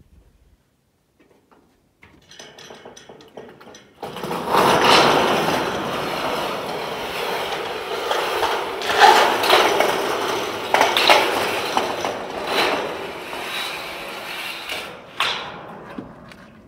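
A long ribbed steel roofing panel hauled up by rope, scraping and rattling as it slides up metal ladders onto the roof, with repeated sharp clanks. It starts about four seconds in, after near silence.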